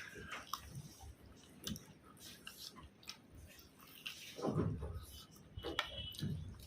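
A person eating: soft chewing with small wet mouth clicks, and a short low voiced sound, like a hum or murmur, about four and a half seconds in.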